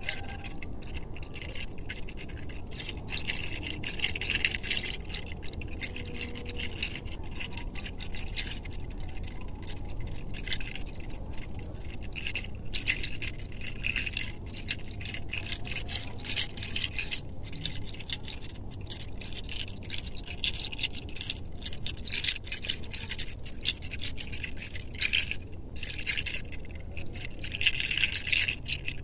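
Fingers rubbing and scratching through hair and over the scalp in a head massage: a steady crackly scratching made of many quick strokes, with no pauses.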